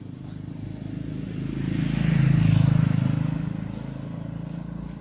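A motor vehicle drives past on the road: its engine and tyre noise build up, peak about halfway through, then fade away.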